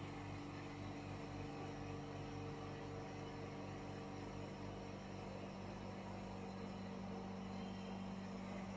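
Vacuum pump of a single-chamber vacuum packaging machine running steadily, drawing the air out of the closed chamber and the bag of salt inside it. It makes a continuous hum whose pitch firms up about six seconds in.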